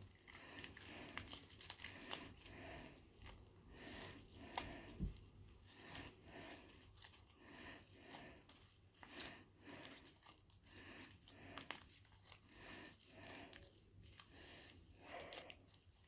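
Glue-based slime being mixed with activator: faint, irregular sticky squishes and crackles as the slime is worked, repeating every second or so.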